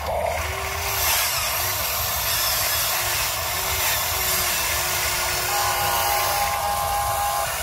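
Small electric motors of a Huina 580 RC excavator whining in short rising-and-falling arcs as the arm and bucket dig into soil, over a steady hiss.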